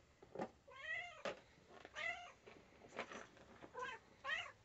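Domestic cat meowing about four times in short, rising-and-falling calls, begging while a box of treats is being opened. A few light clicks come between the meows.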